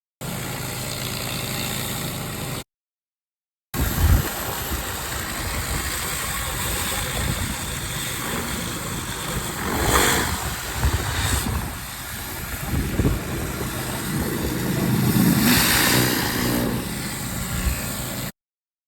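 Pressure washer running: a steady engine drone under the hiss of the high-pressure spray, with the spray noise swelling and easing as the wand moves. The sound breaks off completely for about a second near three seconds in and then resumes.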